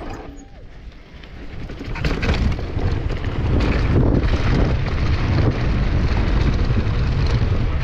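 Wind noise on the microphone and mountain bike tyres rolling over loose dirt and rocks. It builds up about two seconds in as the bike gathers speed downhill, then stays loud as a steady rumble with occasional knocks from bumps.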